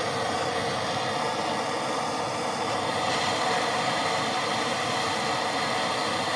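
Handheld gas torch flame burning with a steady hiss, heating a copper pipe and brass fitting that is not yet hot enough for the solder to flow.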